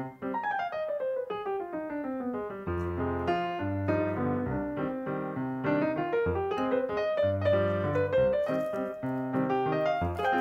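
Background piano music: a run of notes falling in pitch over the first couple of seconds, then chords over a bass line.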